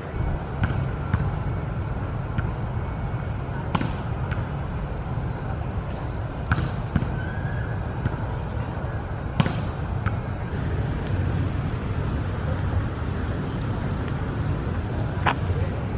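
Steady low rumble of city traffic heard from inside a park, with a handful of sharp, isolated taps or knocks at irregular intervals.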